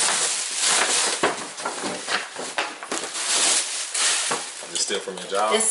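Tissue paper rustling and crinkling in quick irregular crackles as it is pulled out of a paper gift bag. A woman starts speaking near the end.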